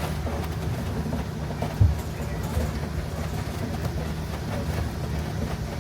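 Safari truck's engine running steadily while the vehicle drives along, with a single thump about two seconds in.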